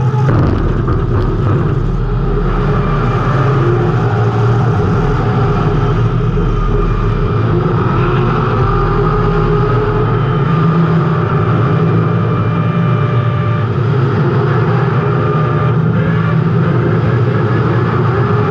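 Race car engine running hard under racing load, with throttle rising and falling, heard loud and steady from a camera mounted inside the car, together with rumble from the chassis and track.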